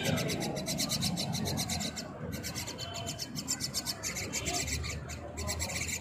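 Common myna chicks begging as they are fed: a fast, harsh rasping of about ten pulses a second, with short breaks about two and five seconds in.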